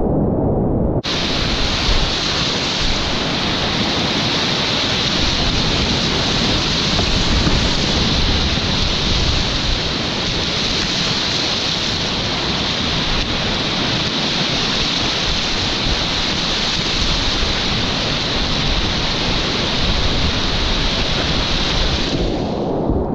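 Loud, steady rush of whitewater rapids heard from a kayak in the middle of the current. The sound is muffled at first, opens up sharply about a second in, and turns muffled again near the end.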